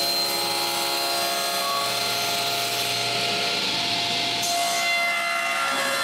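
A woodworking machine running steadily: a continuous hiss with several steady tones, growing brighter in the treble around three to four seconds in.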